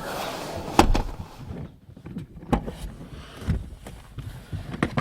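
Vauxhall Insignia rear seat backrest being unlatched and folded forward: a rustle, a sharp click a little under a second in, then scattered knocks and a low thud about three and a half seconds in.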